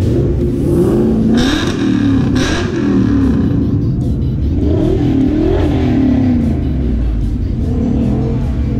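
Car engine being revved again and again, its pitch rising and falling about once a second.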